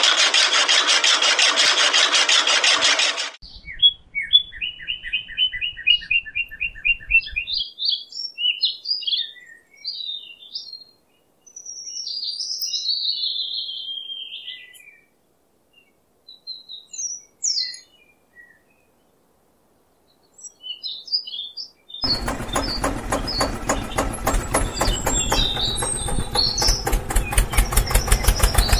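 Small electric motor of a toy tractor driving a model chaff cutter's flywheel by a belt: a loud steady buzz that cuts off about three seconds in. Birds chirp through the long gap, starting with a quick run of chirps, and about twenty-two seconds in the motor starts again with a fast regular ticking, birds still chirping over it.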